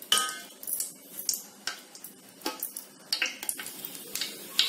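Whole cinnamon, cloves and cardamom crackling and sputtering in hot oil and ghee in an aluminium pot, with irregular sharp pops and a few metal clinks of a spoon against the pot as they are stirred.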